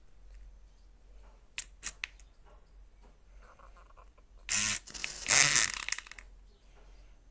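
A few light clicks, then a matchstick head scraped across a matchbox striker strip: a short rasp about four and a half seconds in, then a longer, louder one as the match flares alight with a fizz.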